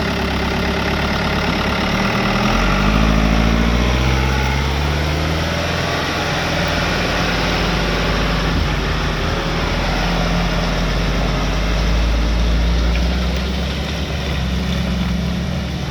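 A vehicle engine running, its pitch rising a few seconds in as it picks up speed, then holding steady.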